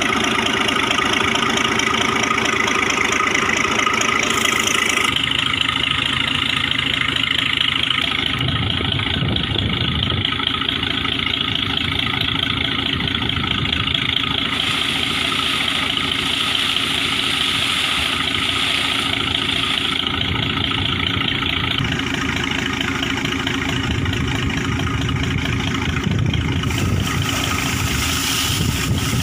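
Engine of a truck-mounted air compressor running steadily under load, with the rush of compressed air driving water and sludge out of a borewell. The sound shifts abruptly a few times without stopping.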